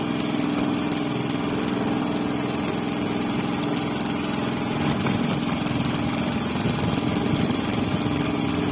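A small engine aboard an outrigger fishing boat, running steadily at an even speed with a constant hum.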